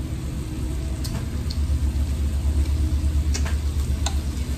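Beef-wrapped enoki mushroom rolls sizzling on a tabletop grill plate, over a steady low rumble. A few light clicks of chopsticks come through.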